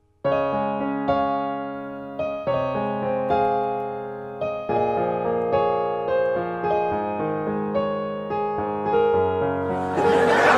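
Electric piano music that starts suddenly just after the beginning, single notes and chords struck in a gentle rhythm. Near the end there is a brief rush of noise over the music.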